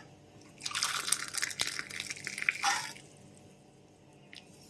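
Hot herbal decoction (kashayam) poured from the pan through a strainer into a tumbler: a splashing pour that starts under a second in and runs about two seconds before stopping.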